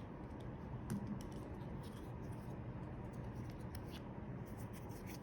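Faint scraping and a few light clicks of a small pick working inside a seatbelt retractor housing, clearing out dried gunk.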